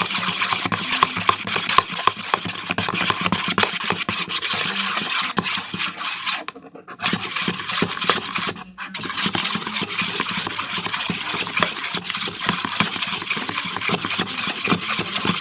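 Spoon stirring glue and water together in a container: a fast, continuous scrape and clatter against the sides, pausing briefly twice partway through. The mixture is being stirred until it is even.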